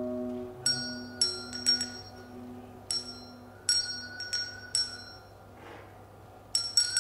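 Small hand-held percussion struck in an irregular, sparse pattern, giving about a dozen bright, bell-like pings that ring briefly, some in quick clusters of two or three. Under them, a low held chord fades away over the first few seconds.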